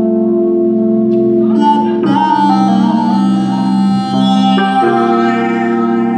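Live band music built on long held keyboard chords, which change about two seconds in and again near five seconds.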